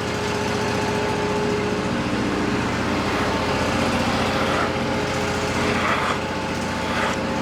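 Wood-Mizer LT40 sawmill's engine running steadily, with an even firing rhythm.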